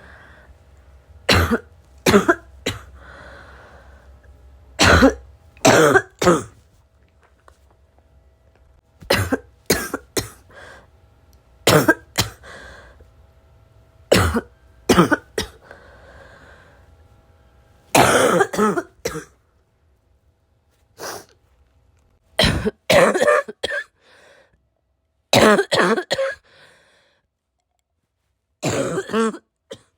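A person's heavy, barking cough, coming in short clusters of two to four harsh coughs every few seconds. It is a smoker's-type cough that the uploader isn't sure is from vaping or from getting sick.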